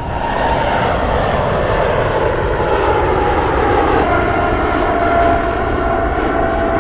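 Departing jet airliner's engines, loud and steady, with a whine that slowly drops in pitch as it passes.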